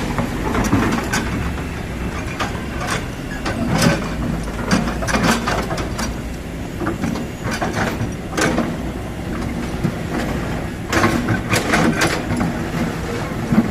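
Kobelco SK200 hydraulic excavator working: its diesel engine running steadily under repeated, irregular metallic clanks and knocks, with a cluster of them about eight seconds in and another near the end.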